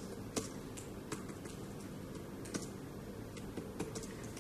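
Typing: a dozen or so short, irregular key clicks over a faint steady hiss.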